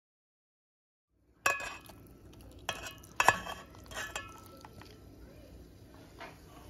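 Metal utensil clinking and scraping against a stainless steel bowl while seasoned oxtail pieces are turned in it. The sound starts after about a second of dead silence, with several sharp clinks; the loudest comes about a third of the way in and fainter ones follow.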